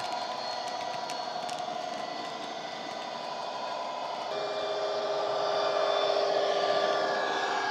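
Model Class 66 locomotive's ESU LokSound decoder playing the EMD two-stroke diesel engine sound through a small tablet speaker. The steady engine note grows louder, with new tones, about four seconds in.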